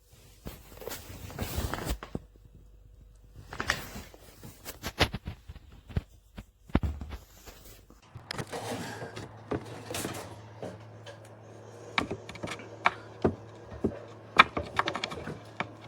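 Handling noises from a wooden phone docking station and desk organizer: scattered clicks, knocks and soft rustling as its parts are turned over and handled, with a faint low hum coming in about halfway.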